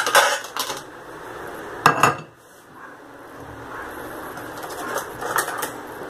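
Kitchen knife and dishes clinking and knocking: a few light clicks, then one sharp knock about two seconds in, and more small clicks near the end.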